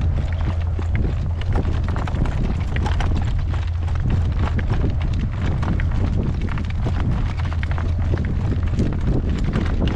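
Horse's hoofbeats, irregular clops on a road, under a heavy, steady rumble of wind on the microphone.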